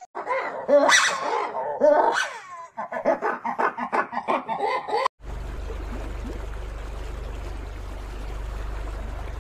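An animal giving a quick series of high, yelping calls for about five seconds, the last ones short and rapid. The calls cut off suddenly and give way to a steady low hum.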